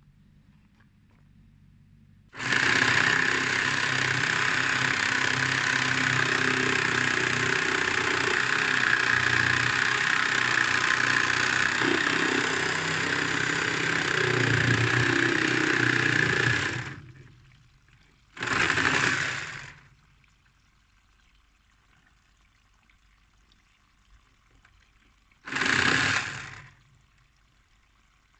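Water rushing out of a cracked plastic water pipe, a steady loud gush for about fifteen seconds that stops, followed by two short spurts of a second or so each.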